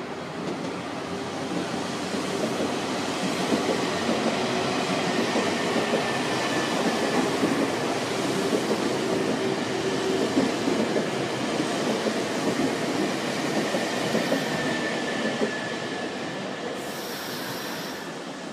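Nankai electric train running past on the rails: a steady rumble and clatter of wheels that swells over the first couple of seconds and eases off near the end, with a thin high wheel squeal through the middle. A brief high hiss comes shortly before the end.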